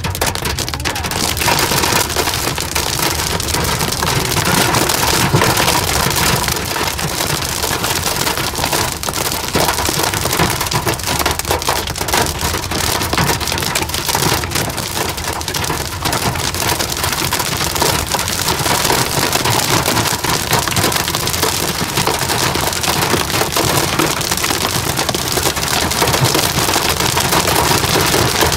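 Hail and heavy rain pelting a car's roof and windshield, heard from inside the cabin as a loud, steady, dense clatter of rapid hard impacts.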